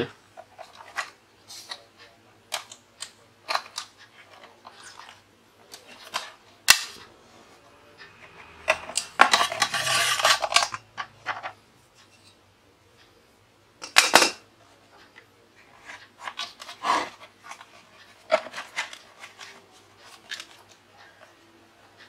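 Clicks, knocks and rattles of an aluminium-framed plywood travel box being handled and opened: its hinged door of aluminium bars and metal fittings clattering, with a longer rattling scrape in the middle and a few sharper knocks.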